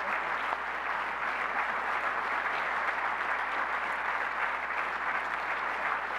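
A large audience applauding, a steady dense clatter of many hands clapping.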